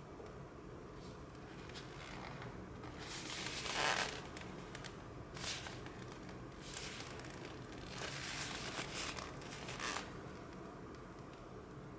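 Cardboard box of processed cheese being handled and turned over in the hands: several bursts of rustling and scraping of skin and fingers on cardboard, the loudest about four seconds in and a longer stretch from about eight to ten seconds.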